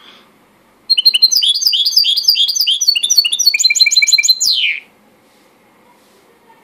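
A white mixto, a goldfinch × canary hybrid cage bird, sings one song phrase of about four seconds starting about a second in: quick repeated chirping notes run into a fast trill and end with a downward sweep.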